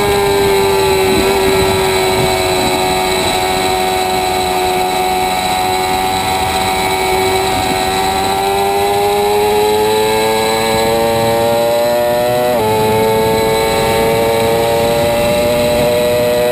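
Motorcycle engine at high revs on a racetrack, its pitch easing at first, then climbing steadily under acceleration. About twelve and a half seconds in, an upshift drops the pitch sharply before it climbs again, with steady wind noise throughout.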